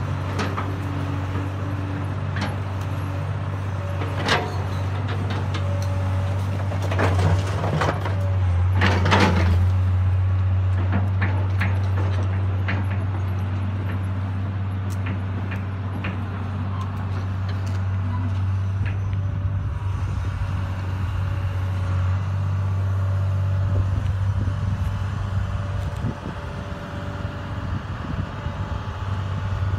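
Caterpillar tracked excavator's diesel engine running steadily, with bricks crashing and clattering as a brick wall is knocked down, the loudest crashes about four seconds in and again around eight to nine seconds in.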